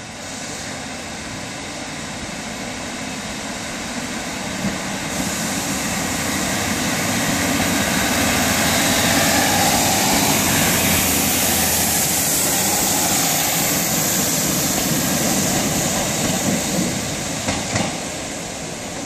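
Class 150 Sprinter diesel multiple unit departing, its underfloor diesel engines working under power as it passes close by and pulls away. The sound builds to a peak about halfway through, then fades, with a couple of short knocks near the end.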